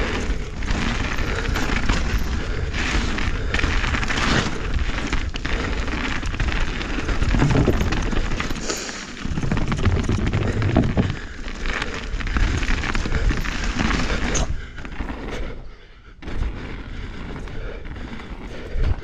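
Trail noise of a 2023 Norco Fluid mountain bike descending dirt singletrack, heard from a rider-mounted camera: tyres on dirt, the bike rattling over bumps and wind buffeting the microphone, with sudden thumps throughout. It crosses a wooden boardwalk about halfway through and goes quieter near the end.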